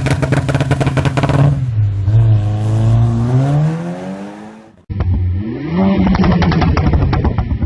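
VW Polo 1.2 TSI's turbocharged four-cylinder petrol engine with a chip-tuned crackle map. There is a rapid string of exhaust pops and crackles as the revs drop, then the engine note falls and climbs again. After a sudden cut about five seconds in, the revs rise and another burst of crackles follows on the overrun.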